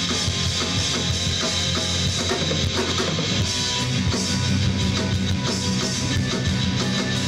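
Live rock band playing an instrumental passage: drum kit and distorted electric guitar with bass.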